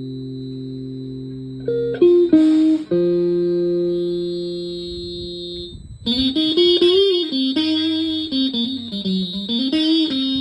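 Ring-modulator noise-generator pedal producing buzzy electronic tones: a steady drone of several held pitches that jumps to new notes about two seconds in with a short noisy burst, then from about six seconds a warbling melody that steps and bends up and down.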